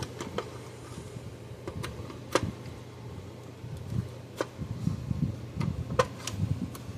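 Small sharp clicks and light knocks of a red insulated spade connector being worked onto a terminal and of hands handling parts inside a plastic fence-charger housing, with the sharpest clicks about two and a half seconds in and near the end. A steady low hum runs underneath.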